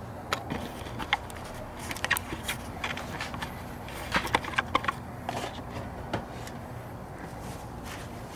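Scattered light clicks and knocks from tools and parts being handled around a truck's engine bay, over a low steady hum.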